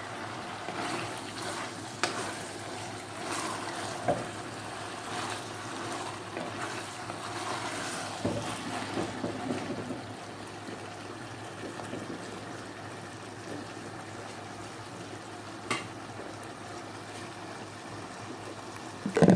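Vegetables and shrimp cooking in a stainless steel pot with a steady wet sizzle. A wooden spatula stirs through them, more busily in the first half, and knocks against the pot a few times.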